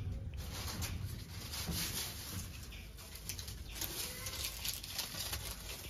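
Hot oil sizzling with a constant fine crackle, as battered chillies or eggs deep-fry for bajji.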